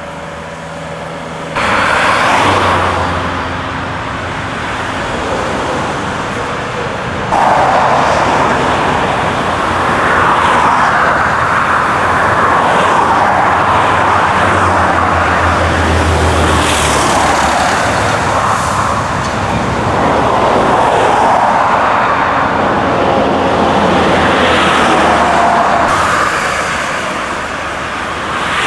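Road traffic noise: vehicles passing on a main road, tyre and engine noise swelling and fading. The level jumps suddenly up about a second and a half in, and again about seven seconds in.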